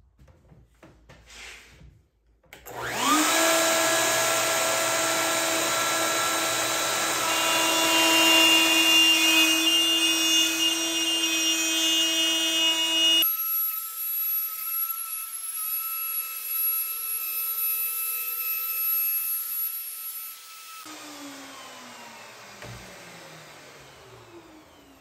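Festool OF 1400 plunge router spinning up with a rising whine about three seconds in, then running at speed while cutting along an arc in a solid cherry tabletop. Near the end it winds down with a falling whine.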